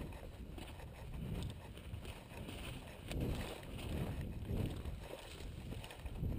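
Walking through dry grass and brush: footsteps and rustling of clothes and gear, with wind rumbling on the microphone of a body-worn camera.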